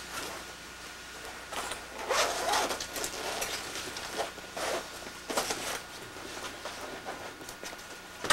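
Heavy clothing rustling and a zipper being worked in irregular bursts as coats and a hooded sweatshirt are put on and adjusted, ending in one sharp click.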